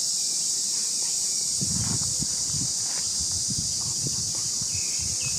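Steady high-pitched insect drone, with soft irregular rustling and knocking in the middle as a young macaque picks at a coconut husk with her hands. A few short chirps come in near the end.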